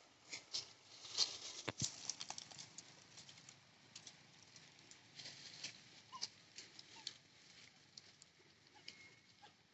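Irregular light patter of small clicks and rustles, busiest in the first few seconds and thinning out afterwards, with a couple of faint short squeaks later on.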